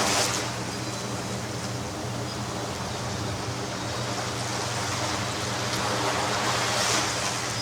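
Ocean surf washing steadily onto a beach, swelling louder as a wave breaks at the start and again near the end.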